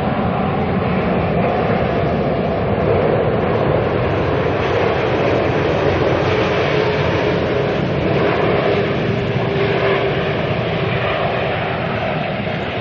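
Airbus A380's four jet engines running loud and steady in a continuous rumble, with a faint tone in it that drops slightly in pitch over the last few seconds as the airliner moves past.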